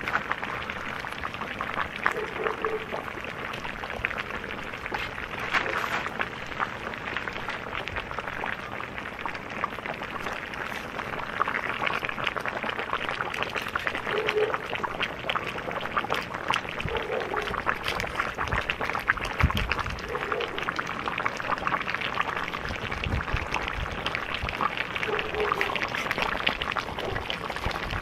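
Beef and onions stewing in a cast-iron cauldron over a fire, giving a steady sizzling and bubbling of meat juices with fine crackles throughout.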